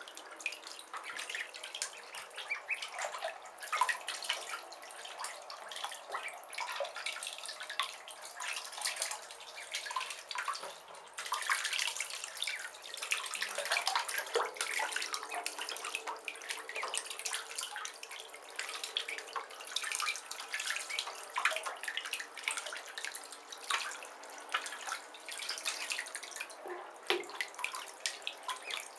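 Shallow bathwater splashing and dripping as Khaki Campbell ducklings paddle and dabble in a bathtub: a dense, irregular patter of small splashes.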